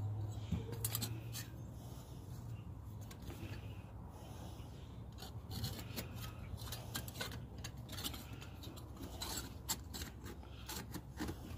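Slotted steel plates of a flat-pack fire pit scraping and clicking against each other as they are worked into their slots by hand: a string of short scrapes and light taps that gets busier in the second half.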